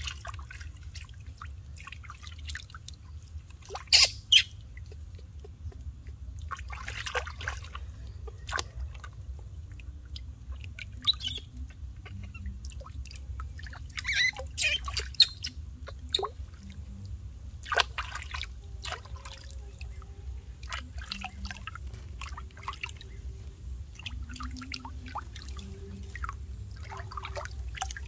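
Hands splashing, scooping and pouring water in shallow water, in irregular splashes and drips, the loudest about four seconds in.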